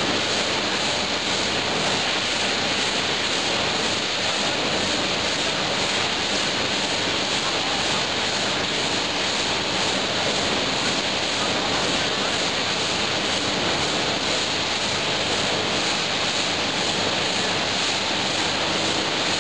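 PET bottle flake washing line running: steady machine noise with water churning and splashing as plastic flakes are paddled through a float-sink washing tank.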